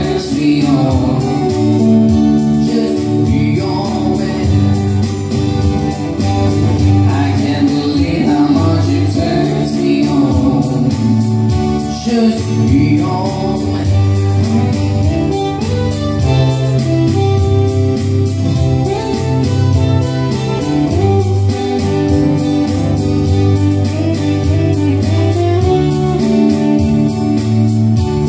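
Live band music: a singer with instrumental accompaniment played through PA speakers, continuing steadily.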